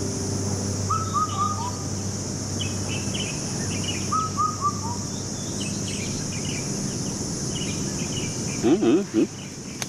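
Outdoor ambience: a bird twice calls a short series of three or four falling notes, with other chirps around it over a steady high drone. A brief loud sound with bending pitch comes near the end.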